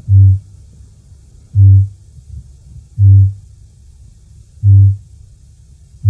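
Male kakapo booming: a deep, low boom repeated four times, about one and a half seconds apart, each boom short. This is the lek-breeding male's courtship call.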